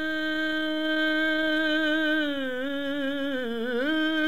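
A male naat reciter holding one long sung note on a single syllable. About two and a half seconds in the pitch dips and wavers in a melismatic turn, then climbs back to the held note near the end.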